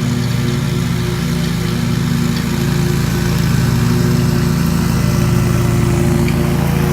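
Engine running steadily at an even speed, a constant low drone that grows a little louder about three seconds in.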